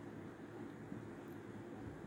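Steady low room hum, with faint soft strokes of a marker writing on a whiteboard.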